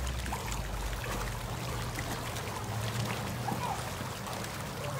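Swimming-pool water splashing and trickling as a dog paddles across the pool, over a low steady hum.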